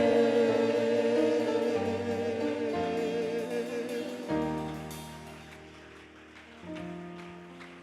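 Christian worship music between songs: held chords that change every second or two and fade steadily.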